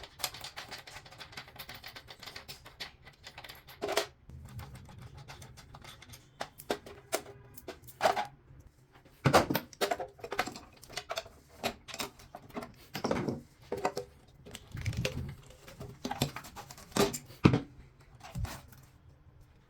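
A series of irregular knocks and clicks, some sharp and some dull, with short quiet gaps between them, like objects being handled and set down.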